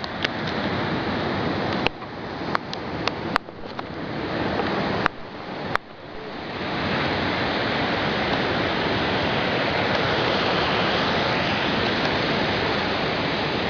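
Waterfall rushing, a loud, even wash of water noise. In the first half there are several sharp clicks, each followed by a brief dip in the noise.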